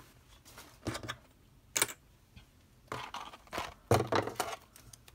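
Handling of a small shrink-wrapped Disney Doorables blind-box package. A few scattered short clicks and taps are followed by a louder plastic rustle about four seconds in.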